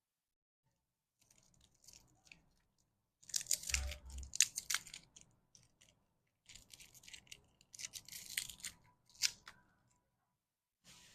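Plastic candy wrapper crinkling and tearing as a lollipop packet is opened, in several bursts of crackling with sharp clicks, loudest in the middle.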